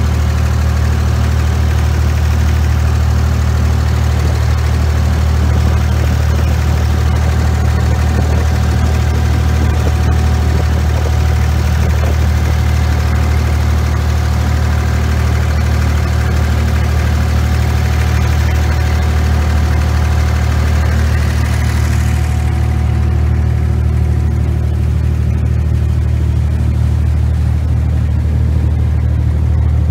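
A passenger boat's engine running steadily with a deep hum, heard from on board. A hiss over it fades about two-thirds of the way through.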